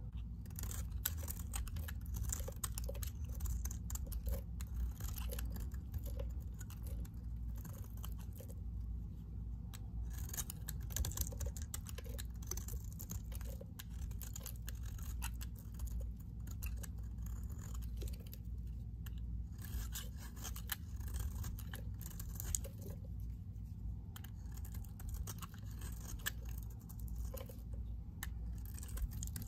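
A knife blade shaving thin flakes off a green Hamam bar soap: dense, crisp scraping crackles in repeated strokes, with a few brief pauses between them.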